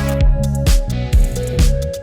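Background music: electronic track with a steady drum beat and held synth notes.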